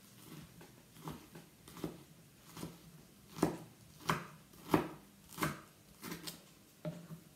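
Kitchen knife chopping squid on a wooden cutting board: about ten knife strokes hitting the board in a steady rhythm, roughly one every two-thirds of a second, loudest in the middle.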